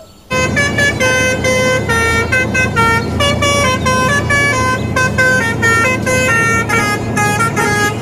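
Musical multi-tone air horn of the Indonesian 'telolet' kind, playing a quick tune of short notes that step up and down in pitch, over a steady low engine hum.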